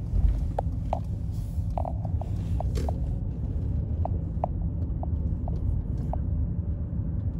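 Low, steady rumble of a car driving slowly, heard from inside the cabin, with a few faint short chirps now and then.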